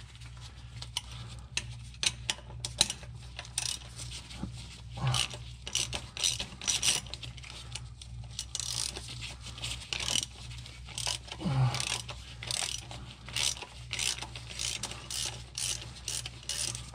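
Hand ratchet with a 12 mm socket clicking in short, irregular runs as a bolt on the transmission's shifter bracket is worked loose.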